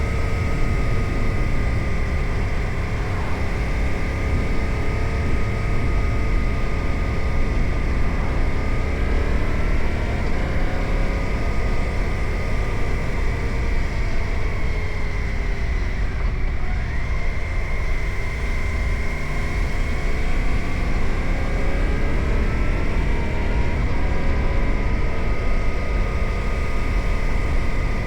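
Suzuki GSX-8R's 776 cc parallel-twin engine running at a relaxed cruise, its note falling briefly just past the halfway point and rising again as the bike picks up speed. Heavy low wind rumble on the camera microphone runs under the engine.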